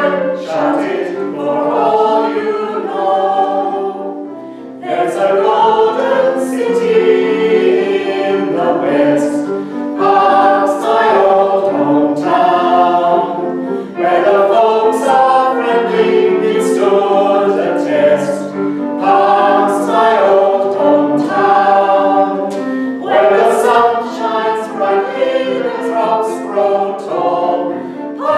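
Small mixed ensemble of men's and women's voices singing a song in harmony, unaccompanied, in phrases with a brief breath-pause about four to five seconds in.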